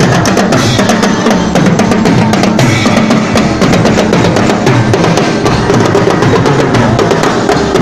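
Marching drum line playing a dense, fast beat: multi-tenor drums and bass drums struck continuously, with hand crash cymbals.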